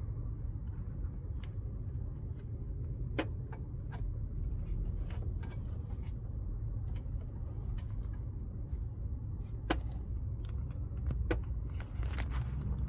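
Scattered light clicks and clinks of tools and metal engine parts being handled during an engine teardown, over a steady low background rumble.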